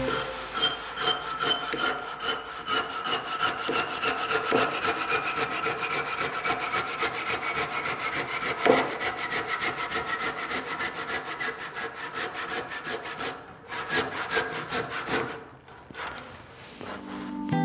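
Handsaw cutting the tenon ends of a wooden joint with quick, even back-and-forth strokes. A faint ringing tone from the cut slides slowly down in pitch. The sawing stops near the end after a last short run of strokes.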